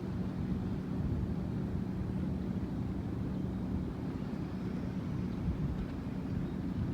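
An engine running steadily with a constant low hum, with wind rumbling on the microphone.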